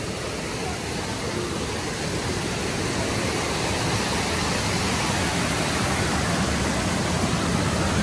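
Shallow water rushing and splashing over limestone travertine cascades, a steady noise that grows a little louder toward the end as the water gets closer.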